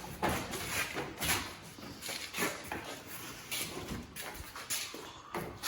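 Irregular knocks and rattles of tools and parts being handled, a short clatter about every half second.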